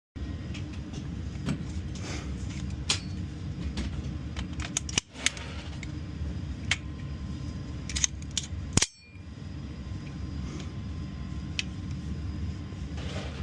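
Steady low rumble of background noise, broken by scattered sharp clicks and clacks. The loudest clack comes about nine seconds in, followed by a brief drop in the sound.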